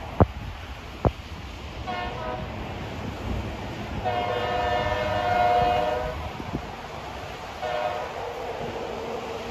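Distant locomotive horn of a BNSF local train: a short blast about two seconds in, a long blast about four seconds in, and another starting near the end. Two sharp clicks in the first second are louder than the horn.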